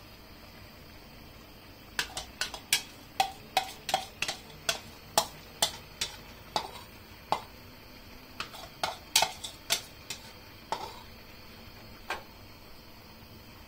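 A metal utensil clinking and knocking against cookware in about twenty quick, irregular strikes, some with a short ring. They start about two seconds in and stop shortly before the end.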